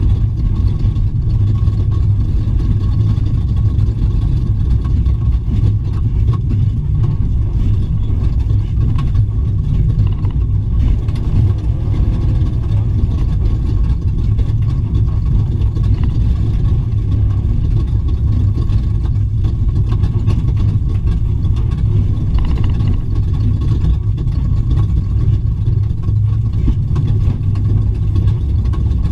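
Ford Raptor desert race truck heard from inside the cab while racing: a loud, steady low rumble of engine and drivetrain, with a faint steady high whine.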